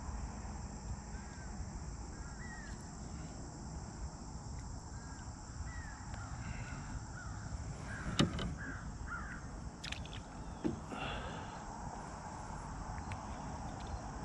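Birds calling in a run of short chirps, with a sharp knock about eight seconds in, over a low steady rumble.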